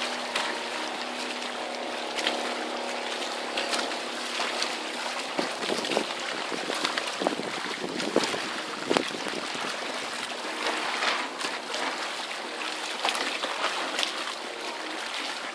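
Water rushing and splashing along the hull of an outrigger sailboat under way, with irregular sharp slaps of waves against the hull and outriggers from about a third of the way in.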